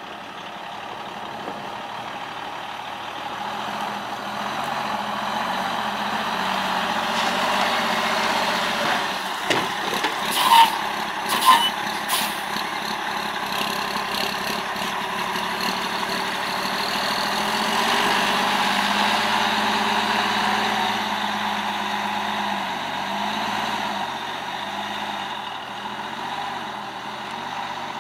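Cummins L10 diesel engine of a 1993 Ford LT9000 dump truck running, its sound building over the first few seconds and swelling and easing through the rest. Two brief, sharp, loud noises come about ten and eleven and a half seconds in.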